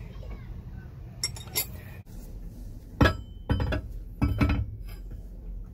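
Sharp metallic clinks, three strikes roughly half a second to a second apart, each with a short ring: the cast-metal water circulation pump knocking against the engine block as it is set into place. A couple of fainter clicks come before them.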